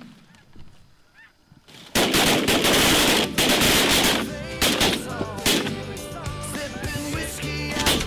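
A volley of shotgun blasts from several hunters firing in quick succession, starting suddenly about two seconds in, with snow geese honking through and after the shooting.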